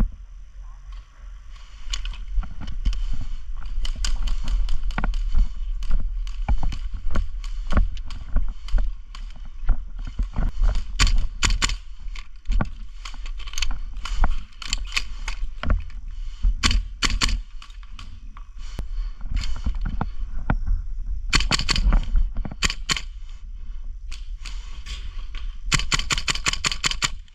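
Airsoft rifle firing, a VFC URGI 14.5-inch, in a run of single sharp shots and, later on, two quick rapid-fire strings, over a steady low rumble of wind or handling on the microphone.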